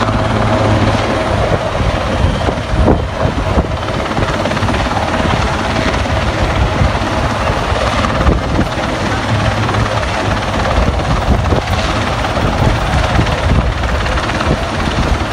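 Atlas Oryx twin-turbine transport helicopter hovering low, its rotor and turbines making a loud, steady noise.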